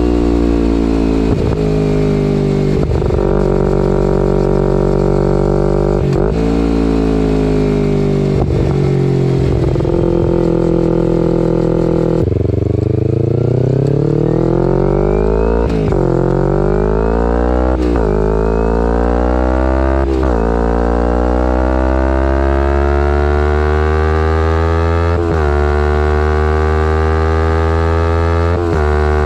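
Kawasaki Ninja 250R SE parallel-twin engine through a full Graves race exhaust, under way and accelerating. The revs climb and fall back at each gear change, several times in the middle, then rise in one long, slow climb through the last third.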